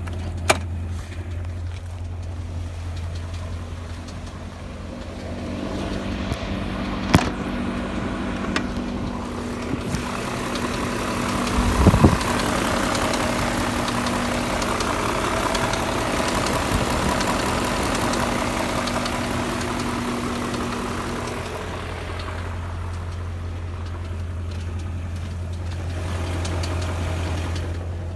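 2001 BMW E39 M5's S62 V8 engine running with a nasty knocking noise that the owner takes for connecting-rod bearing knock. It idles with a steady low hum, grows louder about six seconds in with a thump midway, and settles back to idle near the end.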